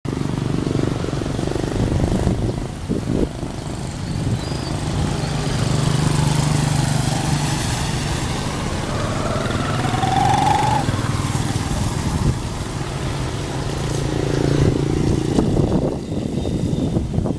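Street traffic passing on a wet road: motorbike and car engines with tyre hiss, swelling twice as vehicles go by, and a short rising whine about ten seconds in.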